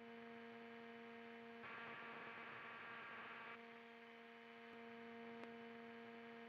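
Near silence: a faint, steady hum made of a few held tones, with a light hiss that swells for a couple of seconds about a second and a half in.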